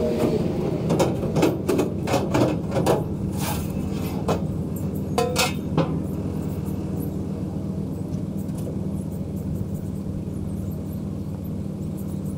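Metal loading ramps clanking and knocking as they are pulled off the back of a truck and set down, a run of sharp knocks over the first six seconds, over a steady engine idle.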